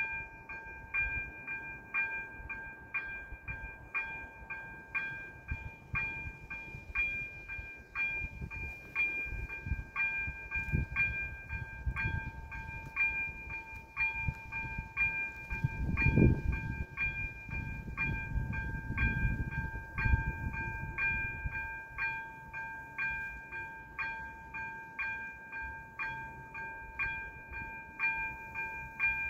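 Level-crossing warning bell ringing steadily at about two strikes a second while the crossing signals flash red, warning of an approaching train. Irregular bursts of low rumble come and go beneath it, the loudest about sixteen seconds in.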